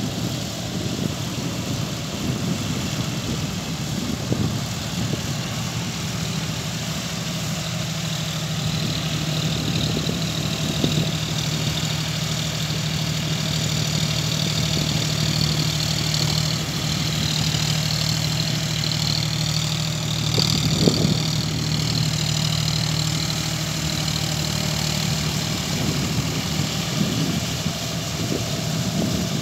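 John Deere 5050D tractor's three-cylinder diesel engine running steadily as it pulls a rotary tiller through a flooded paddy, a continuous drone with a few short knocks.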